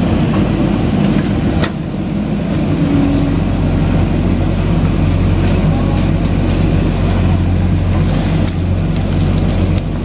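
JCB 3DX backhoe loader's diesel engine running steadily under load as the backhoe arm digs and lifts soil, with one sharp knock a couple of seconds in.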